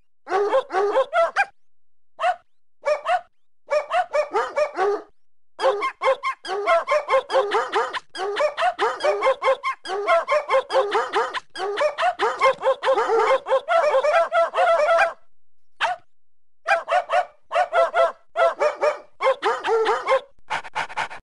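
A dog barking rapidly in long runs of quick, high barks and yips, several a second. There are short breaks, the longest about two-thirds of the way through.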